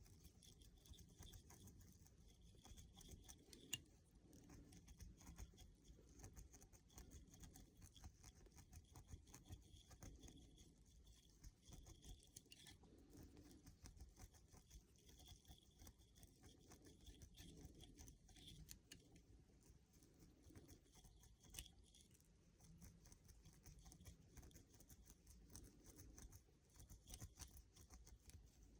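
Faint scratching and rustling of a crochet hook being worked in and out of a dreadlock, pulling stray hairs into its centre, with an occasional small click.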